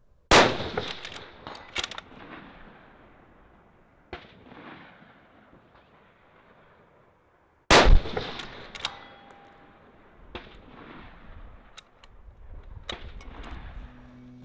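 Two shots from a 6.5 Creedmoor bolt-action rifle, about seven seconds apart, each followed by a long rolling echo. About a second after the second shot, a brief ring comes back from the steel target being hit downrange. Lighter clicks and knocks fall between the shots.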